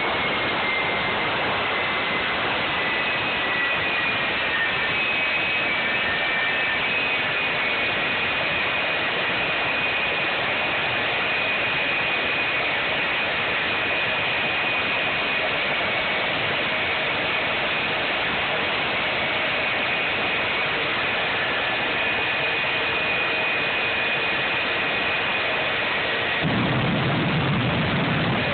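Jet engine of a jet-powered semi truck running steadily: a dense rush with a high turbine whine over it. Near the end a louder low rumble joins in as the truck shoots flame from its exhaust stack.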